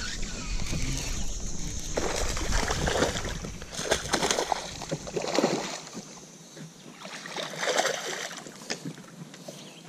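Water splashing and sloshing at a small fishing boat, with scattered knocks.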